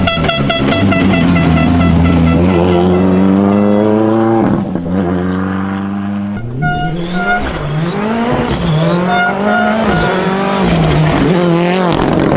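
Rally car engine at full throttle on a gravel stage, revs climbing steadily for about four seconds before a sharp drop at a gear change or lift. After a sudden change about six seconds in, the revs rise and fall repeatedly as the car is driven through corners.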